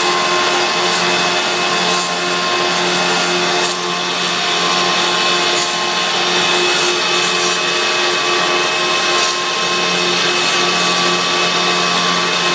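Copy lathe and sanding machine running, its narrow abrasive belt sanding a turned, beaded wooden spindle as it follows the copy template. A steady machine hum with an even sanding hiss over it.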